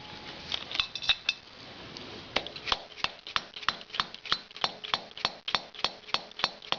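Light metal clinks, then about fifteen evenly spaced taps, roughly three a second, as a valve stem oil seal is knocked down straight onto the valve guide of a Harley Sportster Evolution cylinder head.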